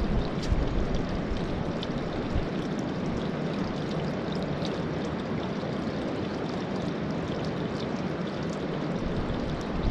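Mountain creek running steadily, a continuous rushing of flowing water.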